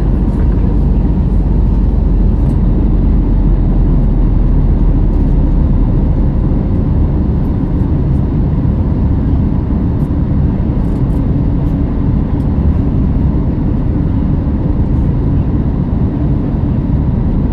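Jet airliner cabin noise during the climb: a steady, loud, low rumble of the engines and airflow, with a faint steady hum over it.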